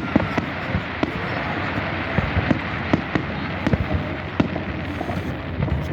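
Fireworks display: a steady barrage of distant aerial shell bursts, many irregular bangs and crackles overlapping into a continuous rumble.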